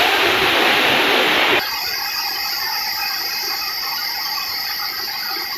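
Waterfall rushing, cut off abruptly about one and a half seconds in. A quieter, steady hiss follows, with a high ringing edge.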